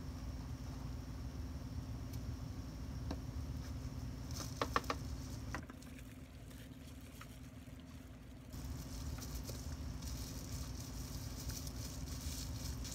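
Plastic bubble wrap, wet with alcohol ink, crinkling and rustling as gloved hands press and wrap it around a tumbler, with a short run of sharp clicks about halfway through. A steady low hum sits underneath and drops away for a few seconds in the middle.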